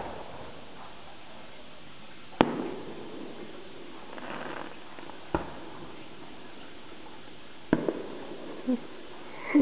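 Fireworks going off: sharp bangs every two to three seconds, two of them in quick succession near the end, each trailing off briefly, over a steady background hiss.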